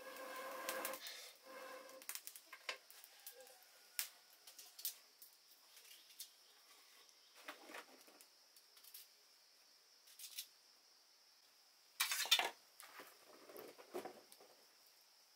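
Quiet wood-fire kitchen sounds. In the first second there is a breathy blow on the fire. After it come scattered small clicks and knocks of sticks and utensils being handled, and a louder rustling clatter about twelve seconds in.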